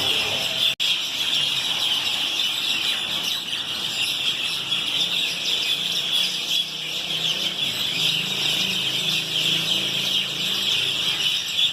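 A dense chorus of many small birds chirping without pause, with a momentary break about a second in.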